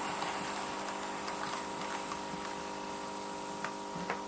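Small electric motor and gears of a TT-scale (1:120) model steam locomotive, the Tillig class 52 club model, running along the track: a steady whirr, with a couple of faint clicks near the end.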